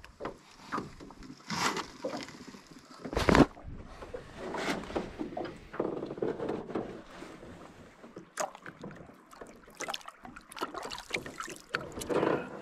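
Handling noise of a small lake trout being held in a small boat and released over the side: rustles, knocks against the boat and water sounds, with one sharp thump about three seconds in, the loudest sound.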